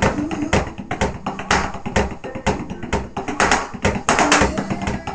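Electronic drum kit played with sticks in a steady beat, the strikes on the pads heard over a backing song with held pitched notes.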